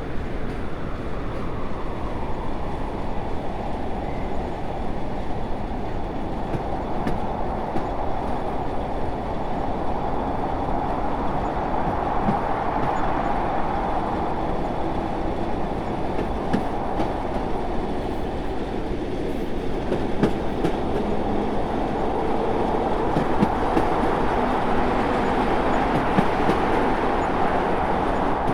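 Train rolling along the rails: a steady rumble that swells and eases slowly, with faint clicks from the wheels.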